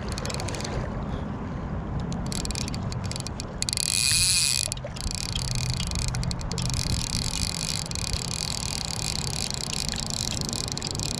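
River water rushing steadily past, with a low rumble underneath and a brief louder swell about four seconds in.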